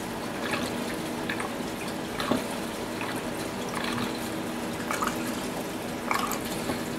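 Gasoline pouring from a plastic gas can's spout into a small engine's fuel tank: a steady trickling pour broken by gurgling chugs about once a second as air gulps back into the can.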